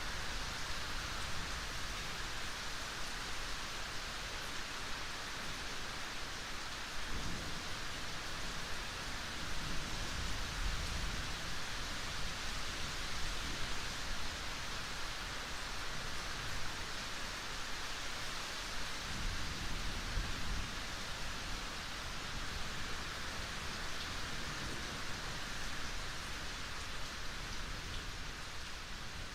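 Steady rain hiss, with low rumbles of thunder swelling up a few times.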